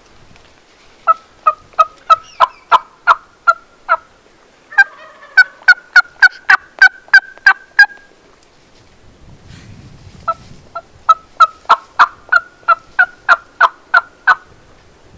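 Turkey yelping in three long runs of evenly spaced notes, about three a second, each note breaking from low to high.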